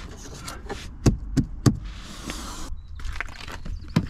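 Gear being gathered up from a car: a handful of sharp knocks and thumps, three in quick succession a little after a second in and more near the end, with a rustle in the middle that stops abruptly.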